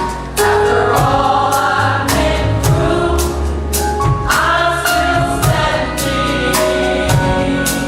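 Gospel choir singing in harmony over a band, with a steady drumbeat and bass.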